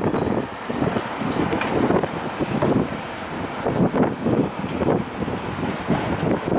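Building demolition: irregular crunching and clattering of masonry being broken and brought down, over a steady machine rumble.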